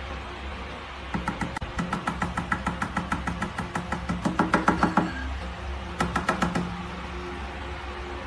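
Quick, even run of light taps or clicks, several a second, from about one second in to five seconds and again briefly a little after six seconds, over a low steady tone.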